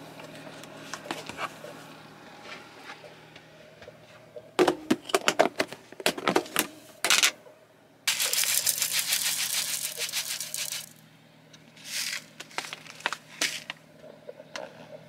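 Plastic food containers clattering as they are taken from a cupboard and opened, with a quick run of sharp clicks. About halfway through, oat flakes are poured into a plastic blender jar, a steady rattling rustle lasting about three seconds, followed by two short pours.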